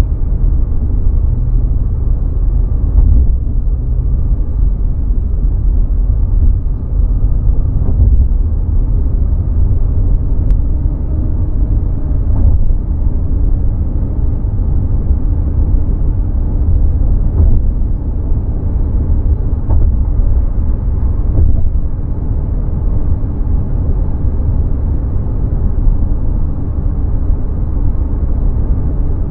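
Steady low rumble of a car's road and engine noise while it cruises at freeway speed.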